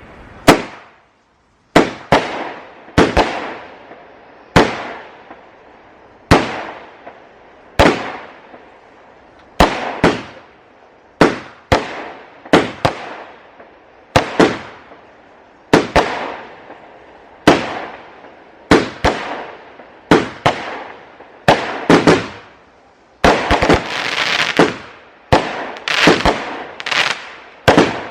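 Fireworks going off in a long string of loud bangs, about two dozen over the stretch, each with a short crackling tail, spaced roughly one every second or so. About two-thirds of the way through, the crackling thickens into a denser spell before single bangs resume.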